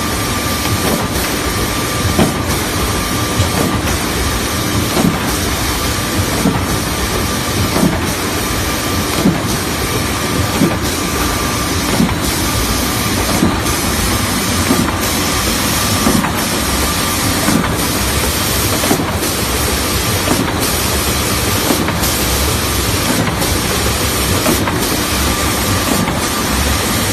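Three-head wide-belt sanding machine for calibrating plywood thickness running: a loud steady grinding hiss with a steady whine, and irregular low knocks.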